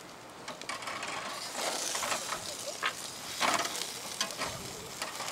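Chicken pieces sizzling on a tabletop cassette-gas grill (Iwatani Aburiya): a steady hiss with scattered crackles and pops of fat, swelling louder a few times.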